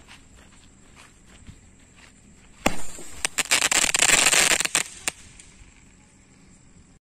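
A firework going off: a sharp bang about two and a half seconds in, then about two seconds of dense crackling and popping with several louder cracks, a last crack, and a fade.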